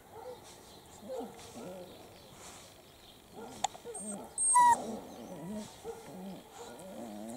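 Italian Greyhound puppies growling and grumbling in short, wavering bursts as they play-wrestle. About halfway through, one puppy gives a single sharp, high-pitched yelp, the loudest sound.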